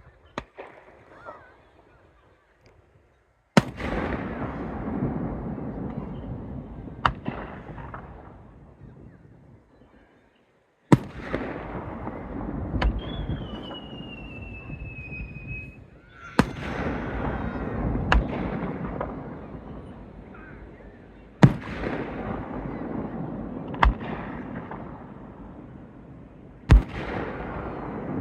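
Aerial fireworks shells bursting, about eight sharp bangs a few seconds apart, each followed by a long rumbling, crackling echo that slowly fades. Near the middle a whistle falls slowly in pitch over about three seconds.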